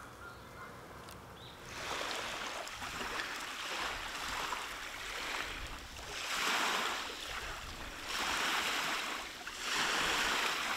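Small waves washing onto the shore: a rushing hiss that begins about two seconds in and swells and fades every couple of seconds.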